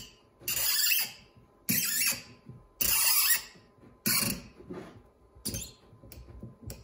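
Hand tap cutting an M8 thread in a brass part, turned with a bar tap wrench: a short squeaking scrape with each stroke of the wrench, about once a second.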